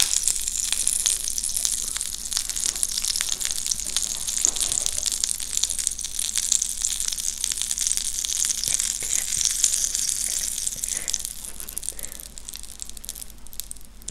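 Pancake batter sizzling and crackling on the hot plates of an electric waffle iron as it is ladled on. The hiss eases off somewhat near the end.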